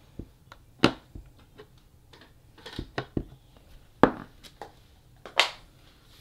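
Clear acrylic stamp block with a photopolymer stamp tapped onto an ink pad and pressed onto cardstock: a handful of short, sharp taps and clicks, the loudest about a second in, about four seconds in and near the end.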